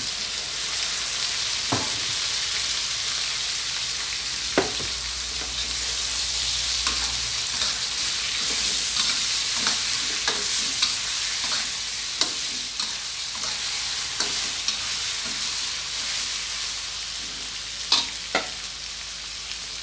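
Chunks of snakehead fish frying in oil and red curry paste in a metal wok: a steady sizzle, with a metal spatula clinking and scraping against the wok now and then as the fish is stirred.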